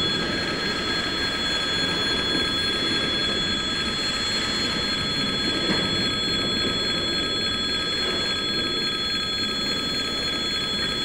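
Level-crossing warning bell ringing steadily over the low rumble of container freight wagons rolling slowly past.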